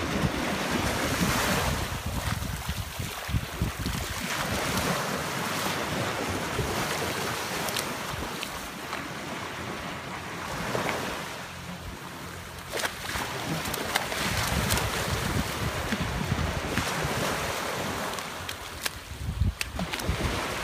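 Small waves washing up on a sandy beach, swelling and ebbing every few seconds, with wind buffeting the phone's microphone.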